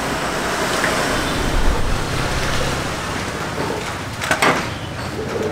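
Steady street noise of passing traffic, with a brief clatter about four and a half seconds in.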